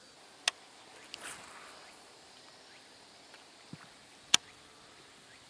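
Two sharp clicks, one about half a second in and a louder one near the end, over a quiet outdoor background with a brief soft rustle a little over a second in.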